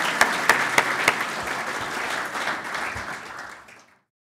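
Audience applauding, a few sharp claps standing out in the first second or so, then fading away and cutting to silence just before the end.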